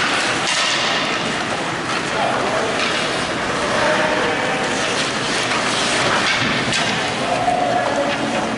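Ice hockey play in an indoor rink: a steady rush of skates on the ice with occasional clacks of sticks and puck, and scattered short shouts from players and spectators.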